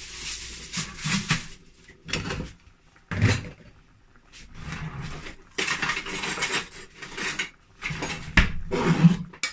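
Aluminium foil crinkling and rustling in bursts as it is handled over a baking tray, with a few sharp knocks of metal kitchenware, about three seconds in and again near the end.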